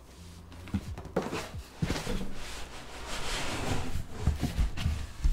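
A Fractal Focus 2 PC case being handled and unboxed: a spell of rubbing, sliding noise with several knocks and thumps, the loudest right at the end.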